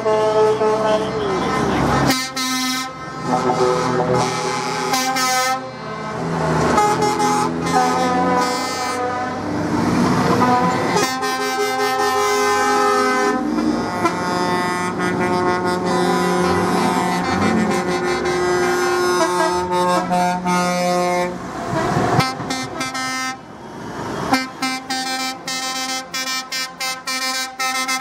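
Lorry air horns blowing long blasts, several at once at different pitches, as a line of trucks drives past, with truck engines beneath. Near the end the horns go in quick short toots, about three a second.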